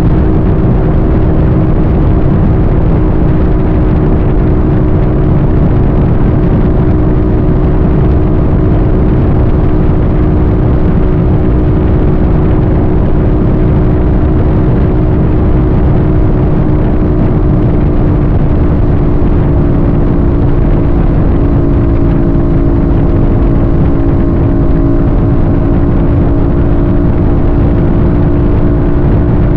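A vehicle cruising at a steady speed: a constant engine drone under loud wind and road noise, its pitch easing slightly lower in the last third.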